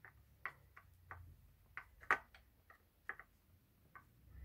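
Light, irregular metallic clicks and taps, about a dozen, from hand tools on the metal parts of a motorcycle engine's electronic ignition as it is fastened; the loudest comes about two seconds in.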